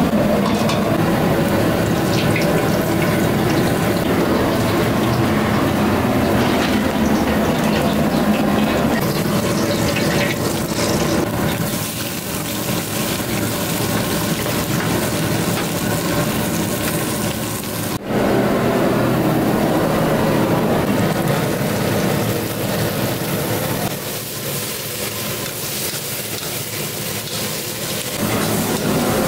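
Steady kitchen cooking noise over a gas burner. A big aluminium pot of curry bubbles at the boil, then sliced shallots and tomatoes are stir-fried in a wok.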